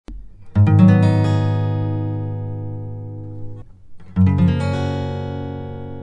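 Intro music: two strummed guitar chords, each left to ring and fade, the first about half a second in and the second about four seconds in.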